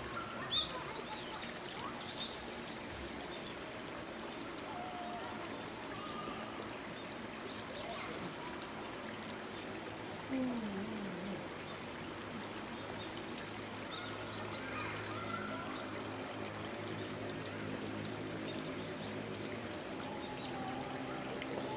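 Steady outdoor background noise with faint, distant voices and a few short bird chirps, the loudest of them near the start.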